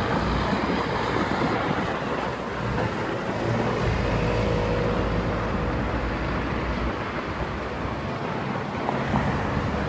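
Street traffic: cars and a box truck driving past, with a deeper engine rumble swelling for a few seconds in the middle.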